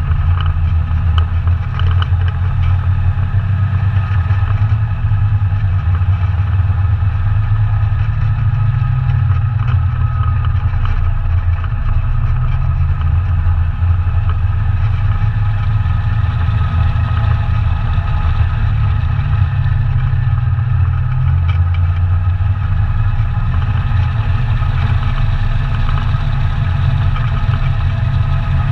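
ATV engine running steadily, a continuous drone whose pitch shifts a little now and then with the throttle.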